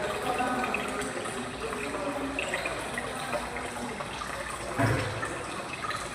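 Steady running and splashing water, with a dull thump about five seconds in.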